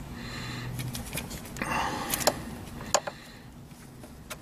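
Hands working a car's engine wiring harness: a few sharp, light clicks with some rustling and scraping as a wire and its connector are pulled and handled.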